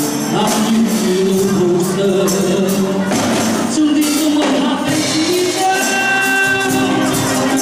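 Live music: a song performed with singing over an instrumental backing with a steady beat.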